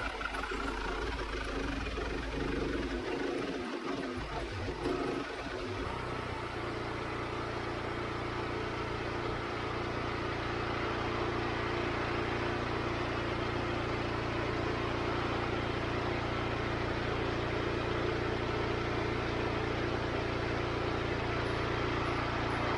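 Wood-Mizer LX25 portable band sawmill running with its engine under way. It is uneven at first, then settles into an even drone about six seconds in.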